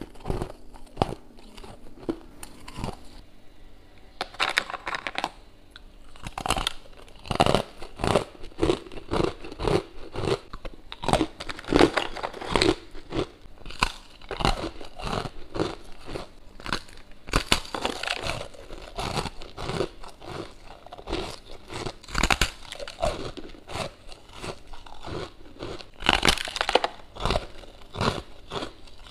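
Close-miked biting and chewing of hard freezer frost: a dense, uneven run of sharp, crisp crunches.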